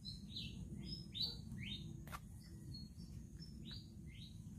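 Small birds chirping: a quick series of short chirps, each sliding downward in pitch. A single sharp click comes about two seconds in.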